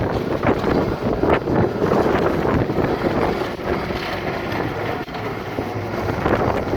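Seashore ambience: the sea's continuous rushing rumble with wind buffeting the microphone, rising and falling in irregular gusts.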